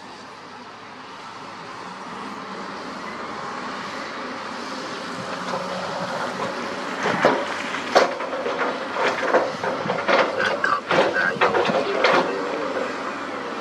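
Dump truck tipping a load of rock and soil: the truck's engine noise swells as the bed rises, then about seven seconds in rocks start clattering and thudding out of the raised bed in a quick, irregular run that lasts about five seconds.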